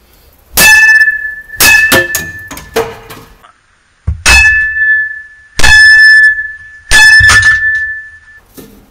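A baseball bat hitting a plastic surfboard fin seated in a clear polycarbonate fin box: five hard strikes, each with a sharp ringing ping, and a few lighter knocks between them. The blows knock the fin out of the box without breaking the box.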